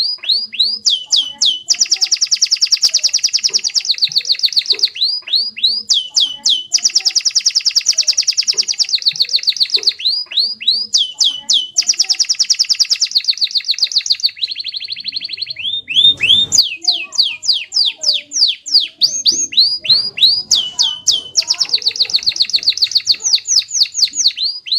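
Domestic canary singing a long, unbroken song: fast buzzing trills alternate with series of quick down-slurred whistled notes, the phrase changing every second or two.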